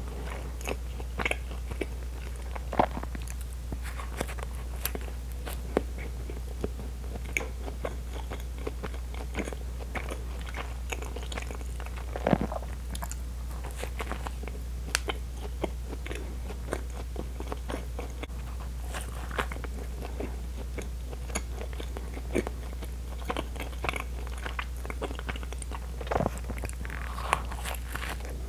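Close-miked eating of a soft filled bread roll: soft bites tearing the bread, then chewing with small wet mouth clicks scattered throughout, over a steady low hum.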